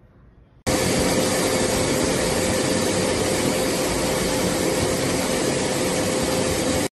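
Electric pet nail grinder's small motor switched on and running at a steady speed, a steady whir with one steady pitched hum through it. It starts suddenly about half a second in.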